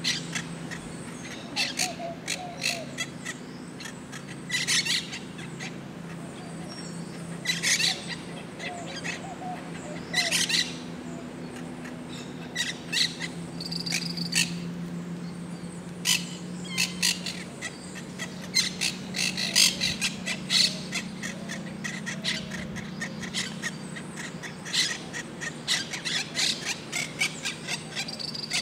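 Birds calling outdoors: many short, sharp chirps and squawks, some single and some in quick runs, thickest in the second half, over a steady low hum.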